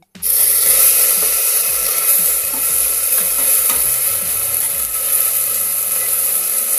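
Chopped tomatoes and green chillies, wet with their own juice, hit hot ghee and fried onions in a pressure cooker and set off a loud, steady sizzle that starts suddenly just after the start.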